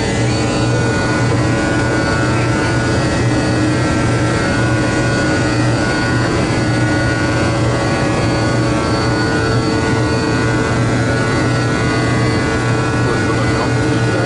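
Steady cockpit noise of a Boeing 777 under jet power: an even rushing drone with several constant hums, the strongest one low, holding level throughout.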